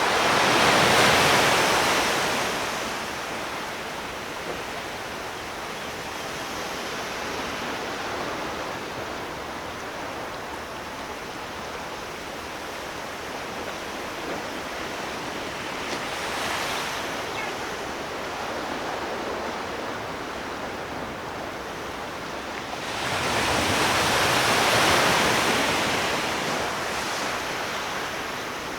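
Sea waves breaking and washing up a shore over a steady surf hiss. Two large waves swell and fade, one at the start and one a little over twenty seconds in, with a smaller one between.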